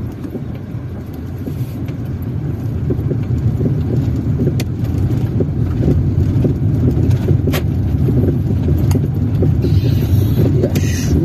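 Inside a car driving over cobblestone paving: steady low tyre and engine rumble that grows louder, with light rattles and a few sharp clicks. Near the end the windshield wiper sweeps once across the wet glass with a brief swish.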